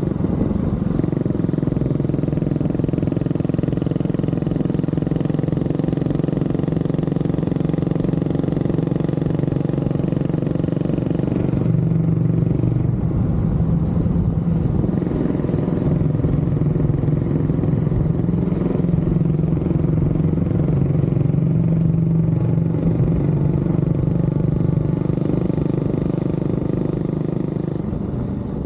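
Honda CB400SS single-cylinder motorcycle engine running steadily under way, its note shifting about twelve seconds in and easing a little near the end.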